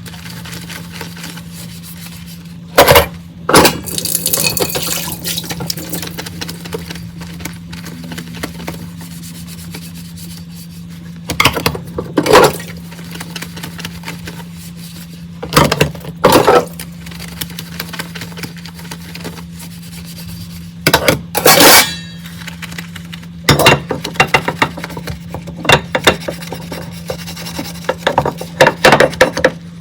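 Dishes and cutlery clattering and clinking as they are handled and set down in a sink, in short bursts every few seconds, over a steady low hum.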